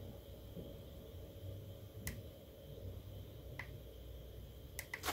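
Faint, sharp clicks over a low steady hum: one about two seconds in, another a second and a half later, then three in quick succession near the end.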